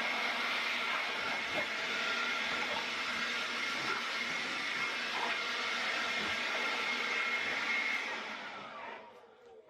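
An electric power tool's motor runs steadily with a hissing, whining noise. About eight seconds in it is switched off, and its pitch falls as it winds down.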